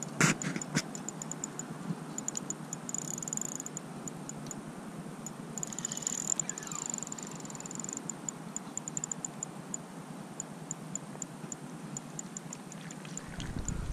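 Spinning reel being cranked, giving a fast, even ticking that runs on for many seconds, with a sharp click right at the start.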